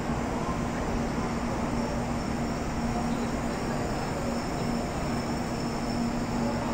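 N700A Shinkansen train standing at the platform, idling with a steady hum and a constant low drone, plus a faint high-pitched whine.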